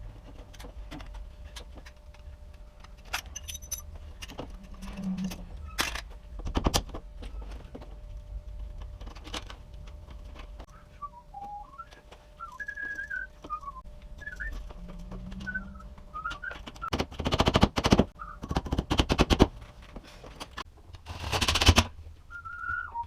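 Someone whistling a few short, wavering notes, with scattered clicks and knocks. Near the end come two dense runs of rapid clicking and knocking, the loudest part.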